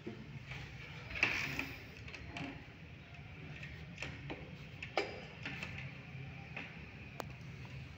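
Scattered sharp clicks and taps from a chess game: a player pressing the button on a digital chess clock and plastic pieces knocking on the board. The sharpest click comes about five seconds in, with a short rustle a little over a second in, over a low steady room hum.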